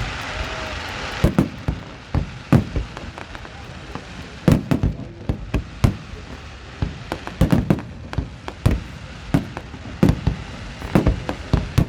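Aerial fireworks bursting: an irregular series of loud booms and sharp cracks, several a second at times, each echoing briefly, over a crackling hiss that fades after the first second or so.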